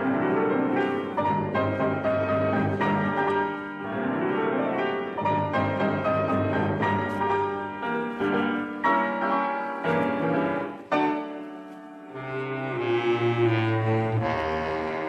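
Orchestral music bridge opening an act of a radio drama: full chords with strings, brass and piano, a rising run at the start and again about four seconds in, and louder low notes in the last few seconds.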